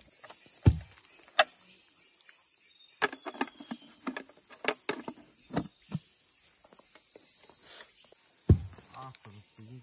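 Steady high-pitched drone of forest insects, swelling briefly a few seconds before the end. Over it come scattered sharp knocks and clicks: a loud knock about a second in and another near the end, with a run of lighter taps in the middle.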